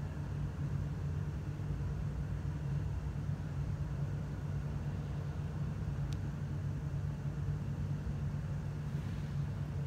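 A steady low mechanical hum with a faint background hiss, and a single faint click about six seconds in.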